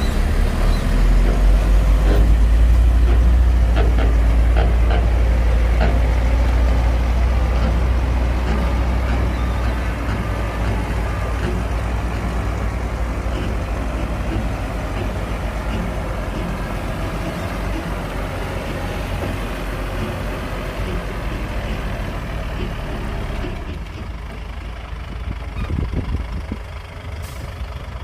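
Heavy diesel earthmoving machinery running: a deep, steady engine rumble, loudest in the first several seconds and slowly easing off. The sound changes abruptly near the end.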